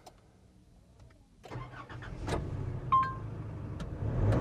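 Nissan Caravan's 2.5-litre turbo-diesel engine starting about a second and a half in and running with a low rumble, climbing in level near the end as it revs up after the start. A short electronic beep sounds about three seconds in.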